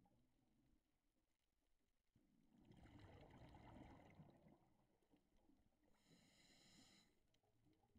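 Faint, muffled scuba regulator breathing heard through an underwater camera housing: a rumble of exhaled bubbles starting about two seconds in, then a short higher hiss of an inhale about six seconds in.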